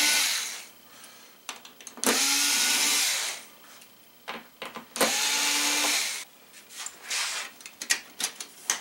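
Cordless electric screwdriver running in three short bursts of about a second each, backing out screws from the TV's metal frame. The first burst stops about half a second in, and the others start at about two and five seconds. After the bursts come light clicks and taps of metal parts being handled.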